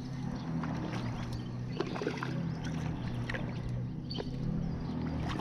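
Boat motor humming steadily, with faint scattered clicks over it.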